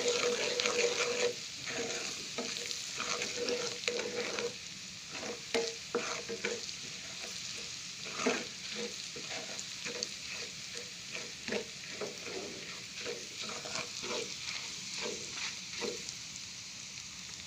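Garlic, curry leaves and sugar frying in hot butter with a steady sizzle, while a spoon or spatula stirs and scrapes the pan in repeated strokes. The stirring is busiest in the first few seconds and lighter after that.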